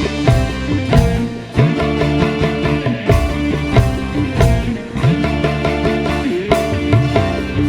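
Band music played loud through a large PA sound system during a sound check: sustained melody notes over heavy bass, with regular drum hits.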